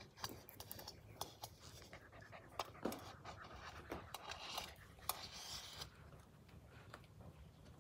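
Blue heeler puppies panting, faintly, with scattered light clicks and scratches of claws on the tile floor and the glass door's track.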